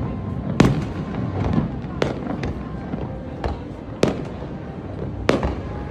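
Aerial firework shells bursting in the sky. Four sharp bangs come about a second or two apart, with fainter pops between them, over a constant background din.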